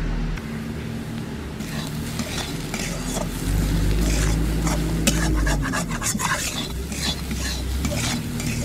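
Metal spatula scraping and stirring masoor dal in a metal kadai, frying it in oil with the spices, in short repeated strokes that start about a second and a half in. A steady low hum runs underneath.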